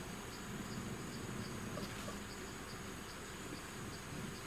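Forest insects, crickets or cicadas, droning: a steady high-pitched buzz with a fainter chirp repeating about twice a second.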